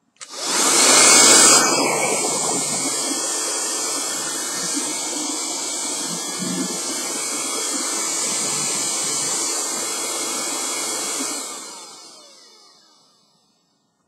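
A 60 W, 12 V handheld wet and dry car vacuum cleaner is switched on with a click and runs steadily, loudest for the first second or so. About eleven seconds in it is switched off and the motor winds down with a falling whine.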